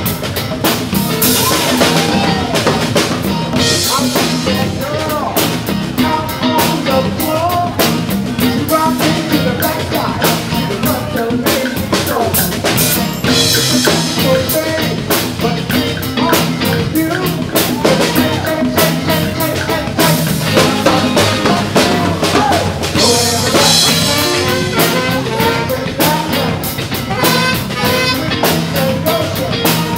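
Live rock band playing at full volume: a drum kit keeping a steady beat under electric guitar and singing.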